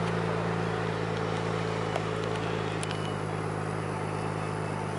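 Steady low engine hum with an even, unchanging pitch over a background rush of noise. A couple of faint ticks come about two and three seconds in.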